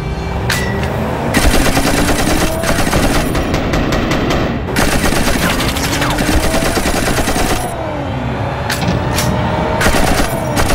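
Automatic gunfire: two long bursts of rapid shots a few seconds each with a brief gap between, then a few separate shots near the end, with sliding tones underneath.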